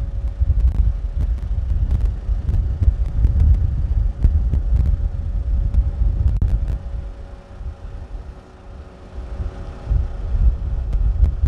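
Dump motor of a Daihatsu Hijet dump truck running steadily as the bed lowers, its hum stopping just before the end as the bed comes to rest. Heavy low rumble of wind on the microphone.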